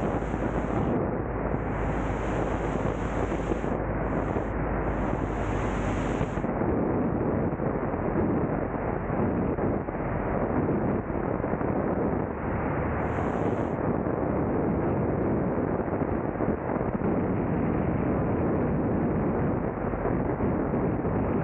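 Steady rush of wind buffeting the microphone of a camera mounted outside a Cessna 172 Skyhawk II in flight. A higher hiss comes and goes several times in the first few seconds and once more about halfway through.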